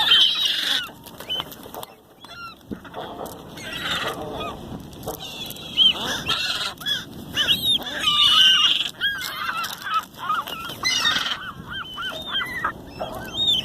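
A flock of gulls squabbling over food: many short, harsh calls overlapping, densest and loudest about eight to nine seconds in.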